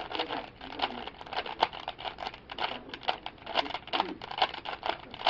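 3x3 Rubik's cube being turned quickly by hand, its plastic layers clicking and clacking in a fast, irregular run of several clicks a second.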